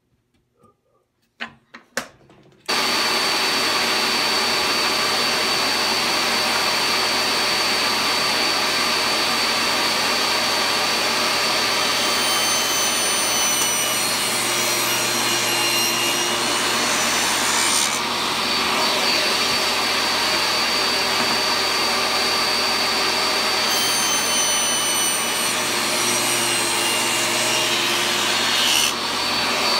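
Table saw switched on after a couple of clicks, its motor starting suddenly and running steadily with a high whine. Twice the pitch sags a little and a rougher cutting sound joins in as the blade cuts a rabbet across the end of a board.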